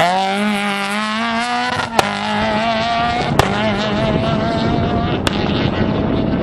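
Rally car engine at high revs, pitch rising as it accelerates hard, then holding a steady high note. Three sharp cracks come about two, three and a half and five seconds in.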